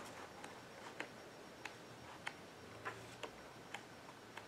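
Faint, regular ticking of a clock, about two ticks a second, over a low hum.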